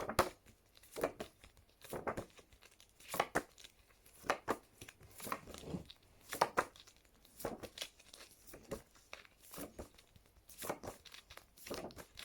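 Paper flicking in short strokes about once a second: phonics letter cards being turned over one after another.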